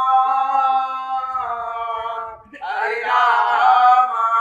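Unaccompanied male voice singing in Bharatha kalai folk style: a long held note that breaks off about two seconds in, then after a short pause a new, busier sung phrase.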